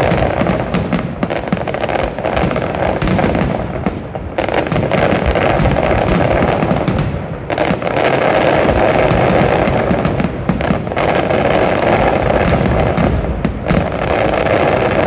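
Fireworks display in a dense, continuous barrage: many bangs and crackles a second over a steady roar, easing briefly twice before building again.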